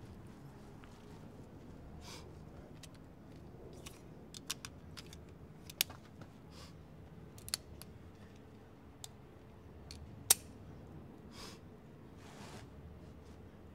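Quiet, steady ambient background with a handful of small, sharp clicks, one much louder about ten seconds in, and a few soft, breathy swishes.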